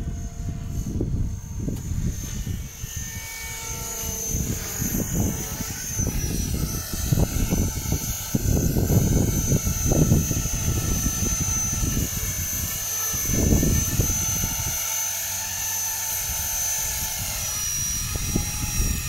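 A radio-controlled 3D stunt helicopter flying, its motor and rotor making a high steady whine that shifts slightly in pitch as it manoeuvres, over an uneven low rumble.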